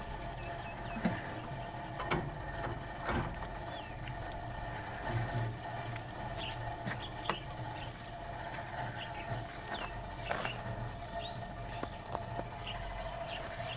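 Pig barn sounds: scattered short, high squeaks and many sharp clicks and knocks over a steady low hum.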